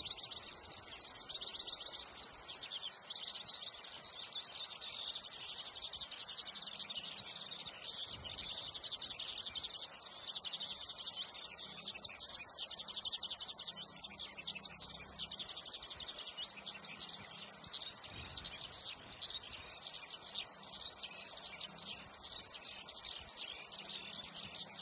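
A steady chorus of high-pitched chirping and chirring from wild creatures in the trees. It is dense and rapidly pulsing and carries on unbroken throughout.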